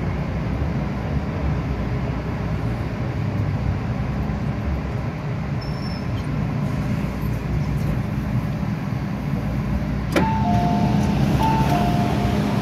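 MTR M-Train metro train running, a steady rumble with a low hum. About ten seconds in there is a sharp click, then a short two-note tone alternating high and low, twice.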